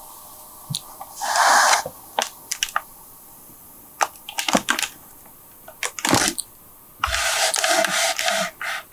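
Frightened kitten hissing as a threat, two long hisses about a second in and near the end, with scattered sharp clicks and knocks between them.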